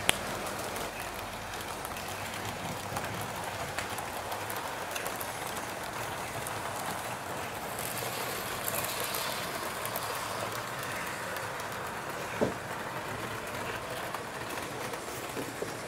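Train running on track, a steady noise, with a sharp click just at the start and another about twelve seconds in.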